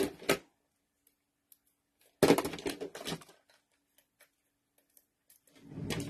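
Clattering and rattling as a stash of adhesive tape runners is rummaged through for a fresh one, in short bouts at the start, about two seconds in, and near the end.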